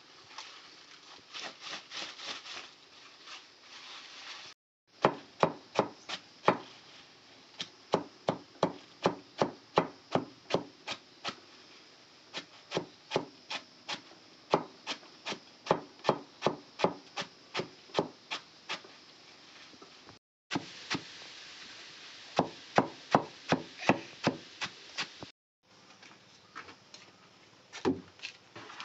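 Heavy knife chopping leafy greens on a wooden block, in runs of quick, even strokes about three a second with short breaks; the first few seconds are softer rustling of the leaves being handled.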